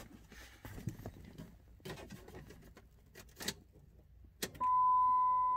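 Faint clicks and handling noises inside a truck cab, then about four and a half seconds in a sharp click and a loud, steady single-pitch electronic warning tone from the truck's dashboard that holds on, as the ignition is switched on.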